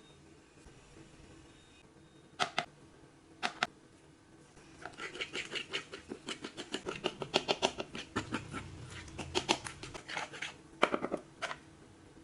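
A utensil clinking against a bowl. A few separate taps come first, then a rapid run of clinks for about five seconds, then a few more taps near the end, as the egg mixture is stirred together.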